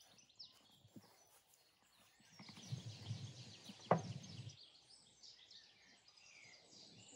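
Birds chirping in the background. Midway, a couple of seconds of handling noise end in one sharp knock as a wooden board carrying a whole side of beef ribs is set down on a table.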